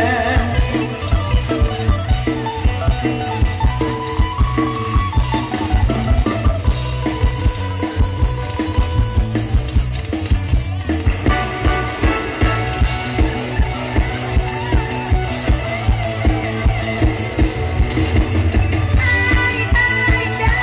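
Live Isan (northeast Thai) band music played loud through a concert PA, driven by a steady, heavy drum beat with bass and electric instruments.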